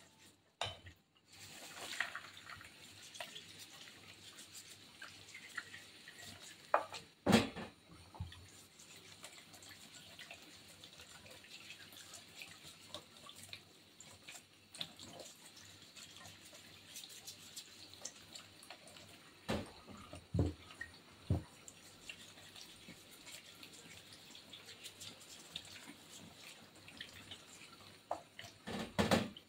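Kitchen tap running in a thin stream onto tomatoes being rubbed clean by hand in a stainless steel sink, with steady splashing and dripping. A few louder knocks stand out about seven seconds in, a cluster around twenty seconds, and near the end.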